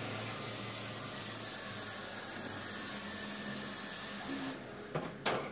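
Steady hiss of water spraying from a dog-wash tub's shower hose, with a faint machine hum beneath it. It cuts off about four and a half seconds in, and a couple of short knocks follow.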